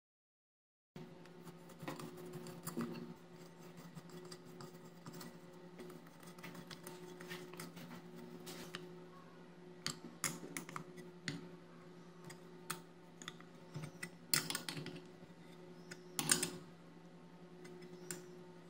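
Small metal clicks and clinks as bolts are set into an aluminium blower housing and turned with an open-end spanner, scattered and irregular, with a few louder ones in the second half. A faint steady hum runs underneath.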